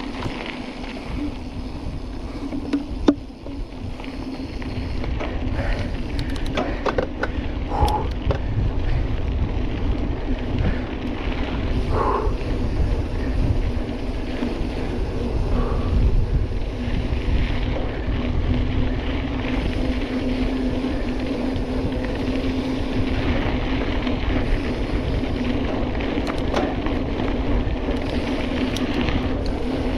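Mountain bike riding fast over a dirt road: tyre and wind rumble on the camera microphone with a steady low hum, broken by scattered rattles and clicks from the bike, and a sharp knock about three seconds in.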